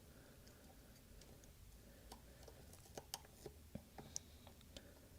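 Near silence with faint, scattered small clicks and ticks, about half a dozen in the second half, from a thin metal pry tool working under a small component and its flex cable on an iPhone screen.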